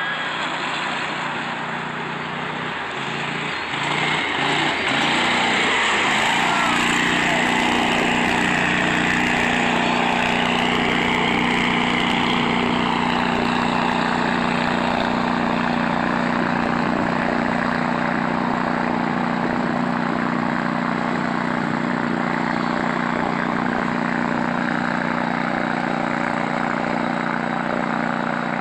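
Argo 6x6 amphibious ATV's engine running steadily, heard at a distance, under a broad rushing noise that gets louder about four seconds in.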